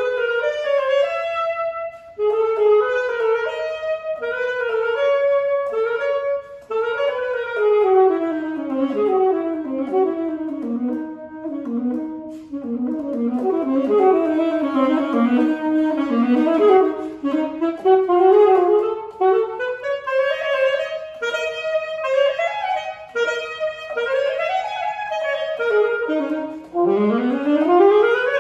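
Alto saxophone played solo without accompaniment: a classical passage of fast running scales and arpeggios, sweeping up and down, with a quick rising run near the end.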